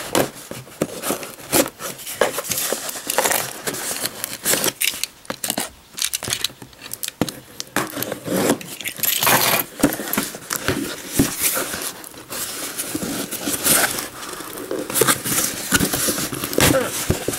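A taped cardboard mailing box being opened by hand: packing tape scraped and ripped off and cardboard rubbed and torn, in irregular scratchy strokes.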